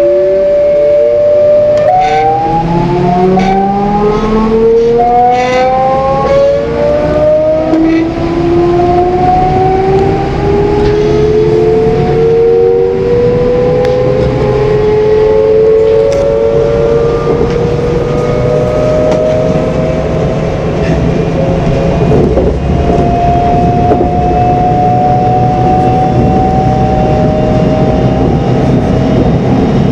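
DB Class 425 electric multiple unit accelerating from standstill, its traction converters and motors whining. Several tones climb steadily in pitch and jump in steps as the converter changes pattern, over a rising running rumble. This is the squealing drive sound behind the train's nickname "Quietschie".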